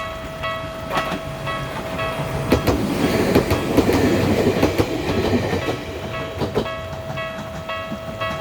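Ueda Electric Railway Bessho Line 1000 series two-car electric train passing over a level crossing, its wheels clacking over the rail joints, loudest in the middle of the pass. The crossing's warning bell rings steadily about twice a second throughout.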